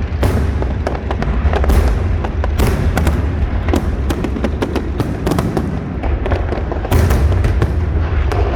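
Aerial fireworks display: a rapid, overlapping stream of shell bursts and crackling bangs over a continuous low rumble, with heavier clusters of bursts near the middle and again about a second before the end.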